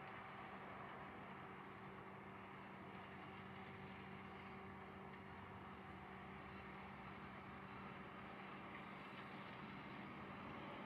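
Faint, steady mechanical hum with a low rumble, growing slightly louder near the end.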